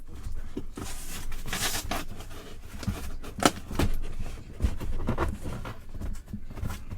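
Hard plastic case being handled and pried at, with scattered clicks, creaks and scrapes; the case is tight and won't open.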